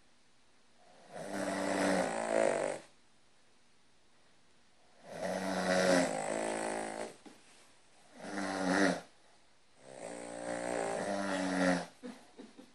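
A Cavalier King Charles Spaniel and a person snoring in sync: four long snores of one to two seconds each, the third shorter, with short quiet gaps between them.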